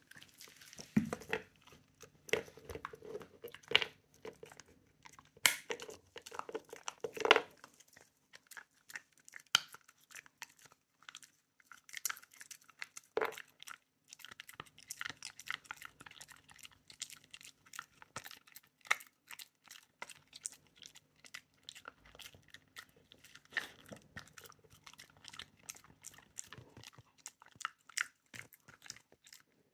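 Shiba Inu chewing a hard dried treat: irregular crunches and clicks of its teeth as it bites and grinds the treat into pieces.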